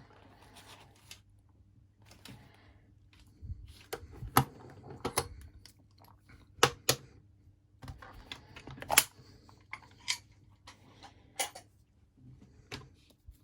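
Irregular sharp metallic clicks and knocks of a just-picked Lockwood padlock and small tools being handled as the lock is opened up for disassembly.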